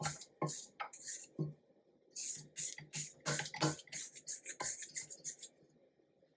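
A spatula scraping frosting down the sides of a stainless steel stand-mixer bowl, in a quick run of short, irregular swipes that stop about five and a half seconds in.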